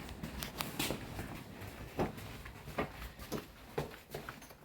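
Faint, irregular light taps and knocks, about a dozen scattered over a few seconds, from a box being handled.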